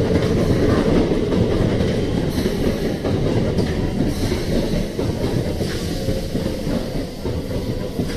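Keikyu electric train running on the station tracks: a steady rumble of wheels on rail.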